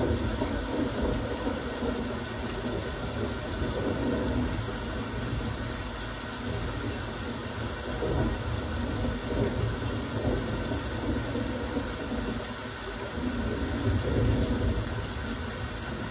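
Steady rain falling, an even hiss with a low rumble that swells and eases every few seconds.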